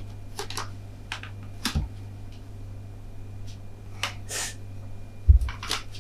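Rolling pin working dough on a board: scattered light clicks and knocks, with a heavier low thump about five seconds in, over a steady low hum.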